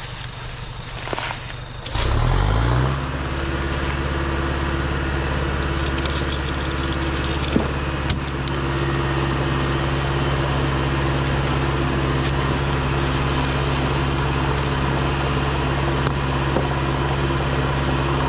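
LKT skidder's diesel engine starting about two seconds in, its pitch rising quickly as it catches, then idling steadily, with a couple of light clicks near the middle.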